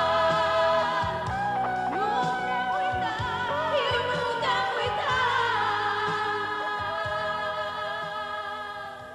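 Closing bars of a 1980s Romanian pop song: the band holds sustained chords under a gliding melodic lead line, and the music fades out near the end.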